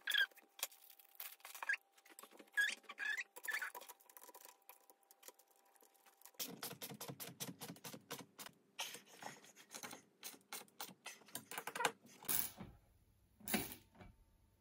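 Hand screwdriver driving screws that fasten a metal chair frame to an upholstered seat base: small squeaks and scrapes of metal on metal, then a fast run of clicks from about six seconds in, and a couple of knocks near the end.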